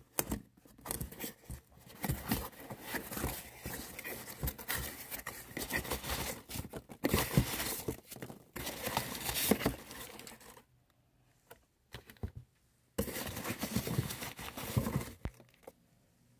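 Hands rummaging through packing peanuts in a cardboard box, a dense rustling for about ten seconds. After a short pause with a few light clicks, a plastic bag holding a pickup crinkles as it is handled.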